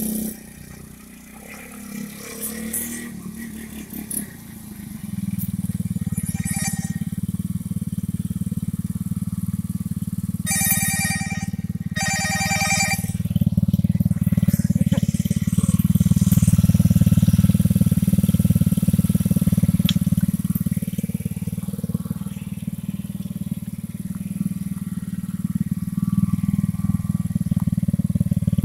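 Coolster 110cc ATV's small single-cylinder four-stroke engine, quieter and uneven for the first few seconds, then idling steadily close by from about five seconds in. Two short high ringing tones sound about ten and twelve seconds in.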